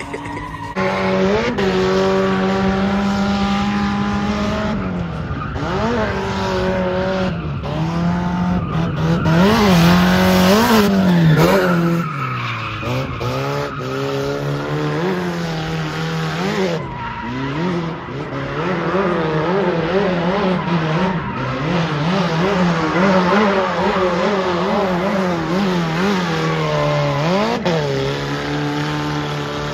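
Drift car on track: the engine revs rise and fall again and again as it slides, with tires squealing throughout. It is loudest about a third of the way in.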